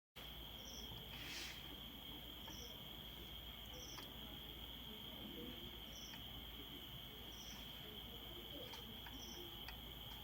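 Faint insects, likely crickets, with a steady high trill and short, higher chirps about every one to two seconds, plus a few faint scattered clicks.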